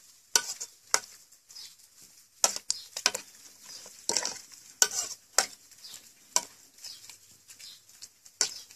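Metal ladle stirring a pot of soupy curry, scraping and clinking against the aluminium pot in irregular strokes.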